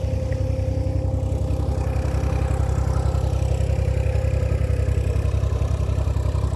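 Diesel engine of a 2-ton mini excavator running steadily at idle, with an even low pulsing and a faint higher whine that fades out about five seconds in.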